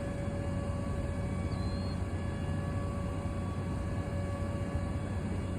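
A vehicle engine running steadily: an even low hum with a faint steady whine over it.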